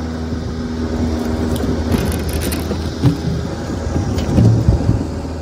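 Timberwolf TW-10 hydraulic log splitter's engine running steadily, then labouring as the wedge forces through a large log, with cracking and heavy thuds as the split halves fall to the ground in the second half.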